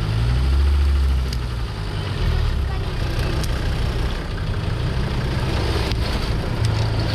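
Off-road vehicle engine running under load, its revs rising and falling.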